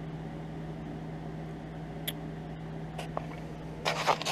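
Steady low hum of shop machinery with a few light clicks; near the end, a short metallic scrape and clink as a tie rod end's tapered stud is pushed into a freshly welded tapered bushing in a cast-iron steering arm.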